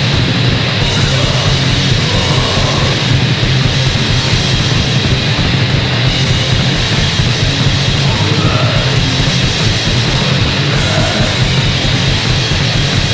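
Punk band playing a loud, distorted song from a demo recording, dense and without a break.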